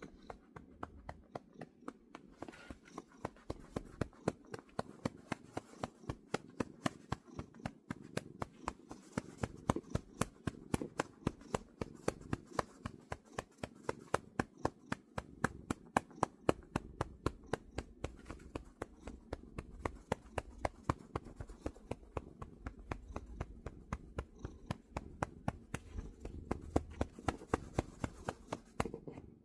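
A cat purring under an even run of soft clicks, about three or four a second.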